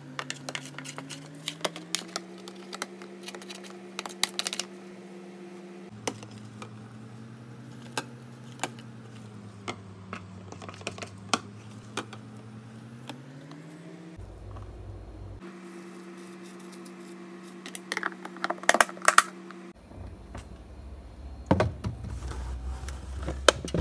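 A plastic dough scraper clicking and scraping against a plastic tub as sticky dough is folded and rounded, over a steady hum. Near the end the hum drops lower and a few louder knocks come as the tub is set onto a refrigerator shelf.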